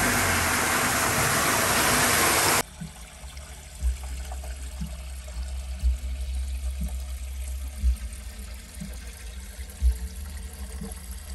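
Water gushing from a fill hose into an orchard sprayer's plastic tank, a loud steady rush that cuts off suddenly about two and a half seconds in. It gives way to a much quieter, muffled sound with a soft low thump about every two seconds.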